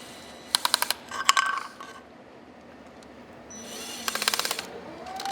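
Ratcheting screwdriver clicking in two quick runs of sharp clicks, about a second in and about four seconds in, as the screws of a gasketed cover are driven tight into a metal octagon box, with a brief metallic clink between them.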